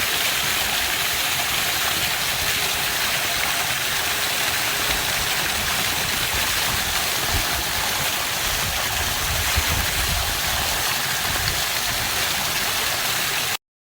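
Water pouring steadily over a small homemade pond waterfall fed by a pump through a biofilter, a constant splashing hiss that cuts off suddenly near the end.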